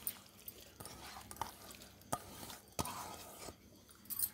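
A hand scooping soaked, wet poha (flattened rice) in a stainless steel bowl to move it into a mixer jar: soft rustling with a few light knocks, about two and three seconds in.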